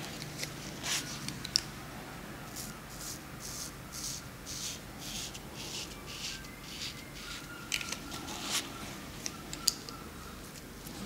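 Straight razor scraping lather and stubble off a shaved scalp in short strokes, a dry rasp about twice a second. Two sharp clicks stand out, one early and one near the end.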